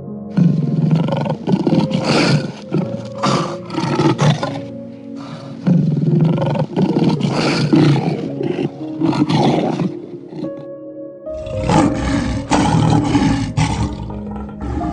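A large animal's loud, rough roaring calls in three long stretches, over soft background music.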